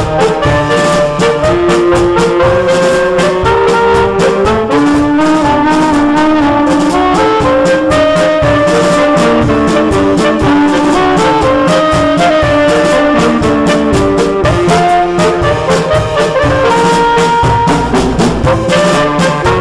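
A saxophone quartet playing a pasodoble in several parts, with melody and harmony lines moving together. Percussion keeps a steady, even beat underneath.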